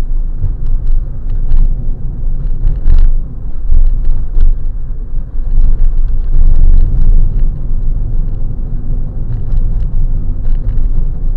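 Car on the move: a steady, loud low rumble of engine and road noise, with a few small knocks and rattles.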